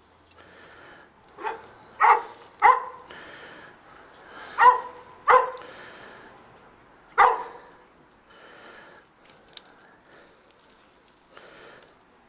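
A dog barking: about six short, sharp barks, mostly in pairs, over the first seven or so seconds, then only fainter sounds.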